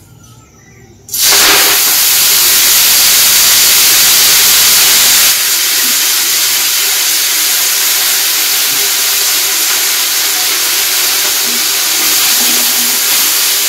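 Washed leafy greens sizzling loudly in hot oil in a wok. The hiss starts suddenly as the wet greens hit the oil, then settles a little lower and stays steady while they are stirred.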